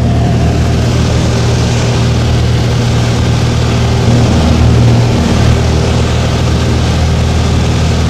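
Cessna 172's piston engine and propeller droning steadily in cruise, heard inside the cabin with airflow noise over the airframe.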